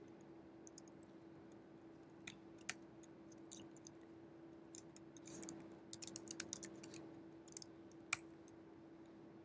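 Computer keyboard keys clicking as a terminal command is typed: a few single keystrokes, then a quick run of them about six seconds in and one sharper click near the end. A faint steady hum runs underneath.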